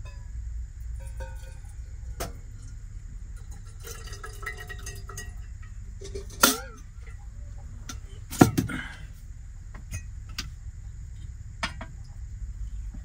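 Teaware being handled while tea is poured: a run of sharp clinks of cups, lid and pot knocked together, the two loudest about six and a half and eight and a half seconds in, with liquid pouring between them. A steady low hum runs underneath.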